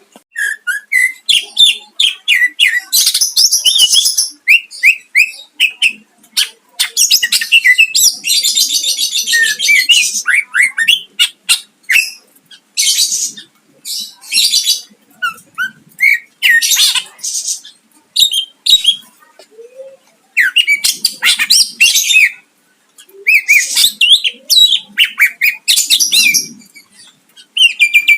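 Cucak ijo (green leafbird) singing a long, loud, varied song of quick chirps and whistled up-and-down notes, broken several times by harsh buzzy rattling stretches, the 'tembakan' shots, with short pauses between phrases.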